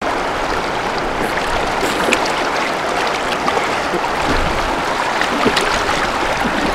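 Shallow stream flowing fast over stones: a steady rush of water with small scattered splashes.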